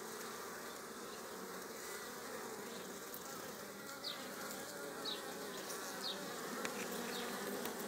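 Steady buzzing of many honeybees flying at a hive entrance.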